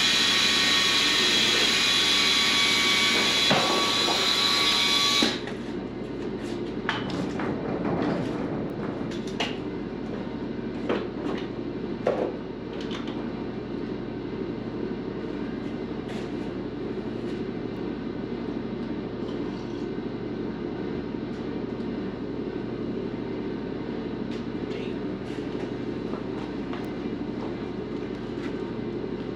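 Loud steady hiss of compressed air, which cuts off about five seconds in. After that a quieter steady low hum runs on, with scattered clicks and knocks of tools being handled.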